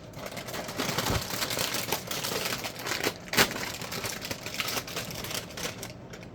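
Plastic cereal bag crinkling and crackling as it is opened, with many small clicks and one sharper snap a little over three seconds in.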